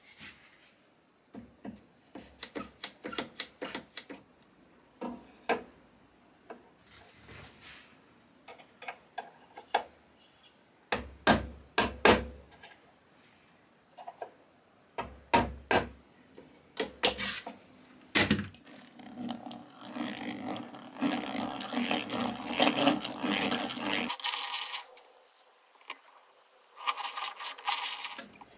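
Workshop handling sounds on a wooden drawer box: scattered clicks and knocks as a metal hinge plate and guide block are set in place, clamped with a quick-release bar clamp and marked through. In the second half a drill runs steadily for several seconds, then again briefly near the end.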